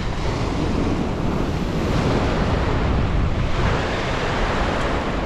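Ocean surf breaking and washing over the rocks below, with wind buffeting the microphone; the wash swells louder a little past halfway through.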